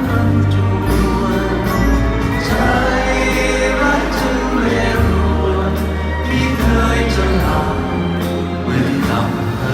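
Live band music at a concert, with long held bass notes under the full band and singing voices that sound like many people singing together.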